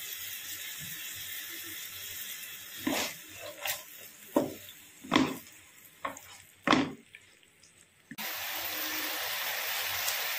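Vegetables and sauces sizzling in a non-stick wok, with about five short scrapes of a spatula against the pan as they are stirred in the middle. The sizzle drops out for a moment and then comes back steady.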